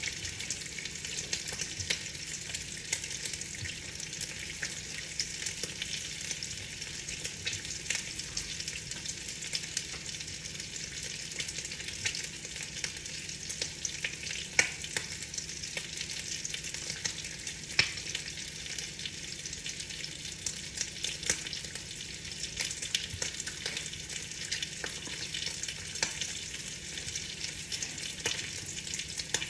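Rain falling on a window: a steady, dense patter of many fine drop ticks, with a few louder taps about halfway through.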